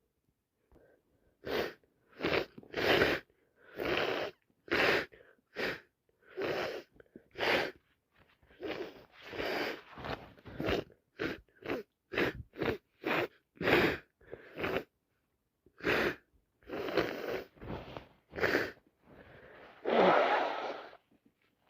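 A woman's congested nose and airways, blocked by a cold turned sinusitis, making a rapid run of over twenty short, wet, breathy bursts of sniffling and snuffling, about one or two a second. A longer, louder sneezy burst comes near the end.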